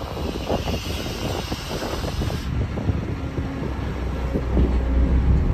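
Link-Belt 490 X4 crawler excavator's diesel engine running with a deep, steady rumble as it loads dirt into an end-dump truck, with wind buffeting the microphone. A hiss runs alongside it and cuts off suddenly about two and a half seconds in.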